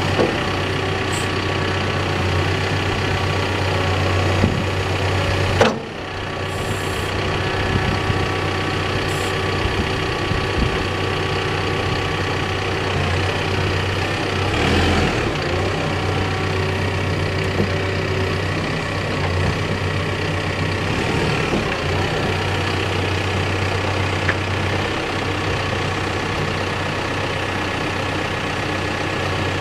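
Backhoe's diesel engine running steadily, with a single sharp knock about six seconds in.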